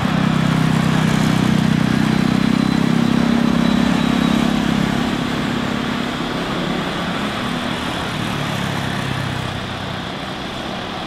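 Airbus A330-300 airliner taxiing, its twin jet engines running at taxi power: a steady rumble with a low hum and a faint high whine, easing a little about halfway through.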